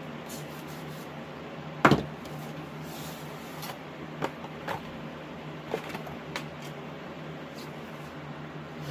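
A loud double knock about two seconds in, followed by a few lighter clicks and taps, over a steady low hum.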